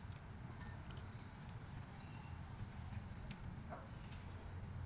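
A few short, sharp clicks as hand tools and small parts on a motorcycle are handled, the loudest a little under a second in, over a steady low background rumble.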